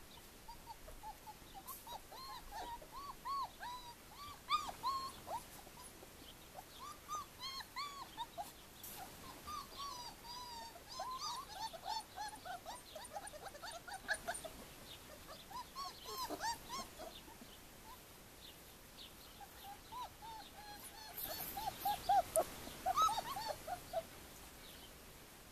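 Four-week-old white shepherd puppies whimpering: many short, high, rising-and-falling whines and squeaks in quick runs, with a louder run near the end.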